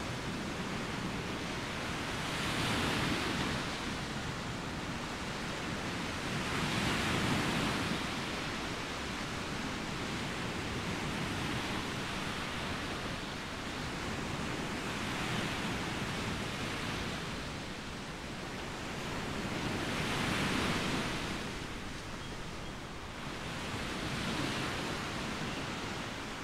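Small Baltic Sea waves washing onto a sandy beach: a steady rushing noise that swells and falls back several times, every four to eight seconds.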